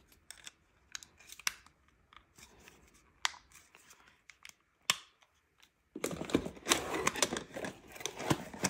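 Scattered small clicks of a plastic double-sided tape roller being turned over in the hands, then from about six seconds in a dense rustle and crinkle of cardboard box and paper packaging being handled.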